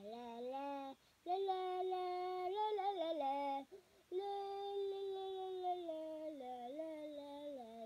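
A child's voice singing long held notes that step up and down in pitch, with a short break about a second in and another about halfway through.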